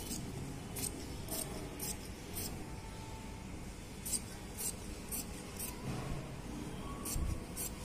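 Large fabric scissors cutting through four layers of folded cloth, the blades snipping about twice a second in short runs of a few snips, with brief pauses between runs.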